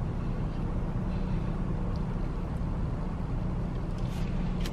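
Steady low hum of a parked car running, heard from inside the cabin.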